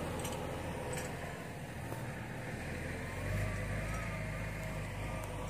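Vehicle engine running steadily, its low hum growing louder about three seconds in.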